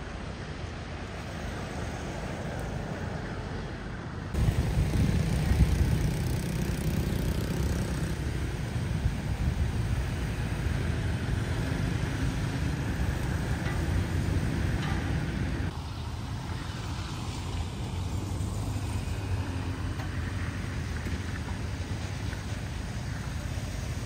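Road traffic noise: a steady rumble of engines and tyres. It gets abruptly louder about four seconds in and falls back again around sixteen seconds.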